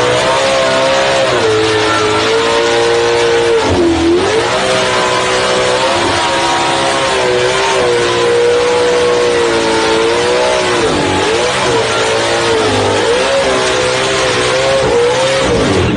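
A car engine running hard at high revs, its note wavering up and down, with two sharp dips in pitch that climb back, about four seconds in and again about eleven seconds in.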